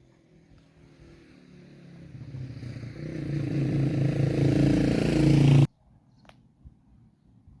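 A motor vehicle's engine draws nearer and grows steadily louder, then cuts off suddenly about five and a half seconds in.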